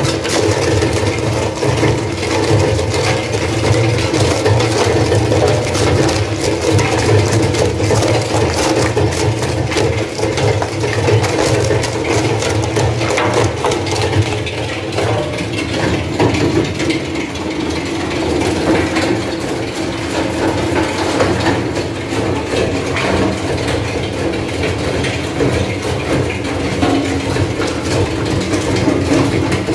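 Industrial wood shredder running under load, its drive humming steadily while the toothed cutter shaft chews through wooden boards with dense, continuous cracking and crunching.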